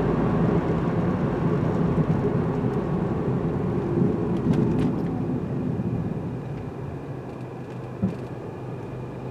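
Low steady rumble of a vehicle running, with a few light clicks, fading down over the second half.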